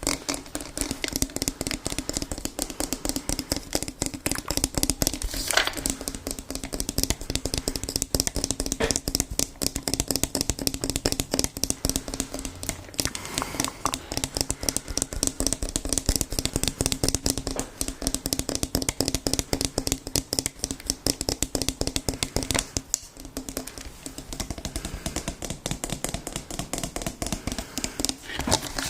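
ASMR tapping: a fast, continuous run of light taps on an object, over a steady low hum.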